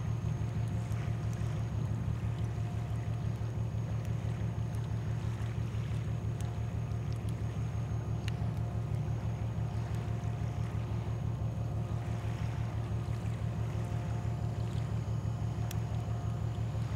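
Steady low diesel engine hum of a vessel out on the water, with a fast, even throb.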